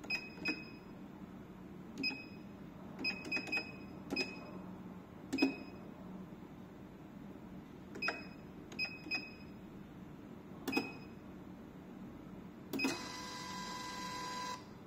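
686A keyboard cash register being keyed in: about a dozen separate key presses, each with a short beep. Near the end the CASH key closes the sale and the built-in receipt printer runs for about two seconds, printing the receipt, then stops.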